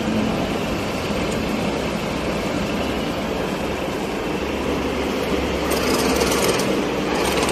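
Dahlih DL-GH950 vertical and horizontal milling machine running, a steady mechanical hum. A deeper rumble joins about four and a half seconds in, with short bursts of high noise near the end.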